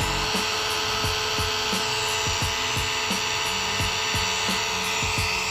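895 DC motor of a homemade circular saw running unloaded with no blade on the arbor: a steady, high-pitched whine.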